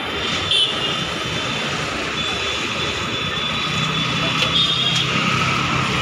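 Steady noise of a busy roadside food stall: parathas deep-frying in a wok of hot oil, with street traffic behind. A low engine-like hum swells for a second or two just after the midpoint.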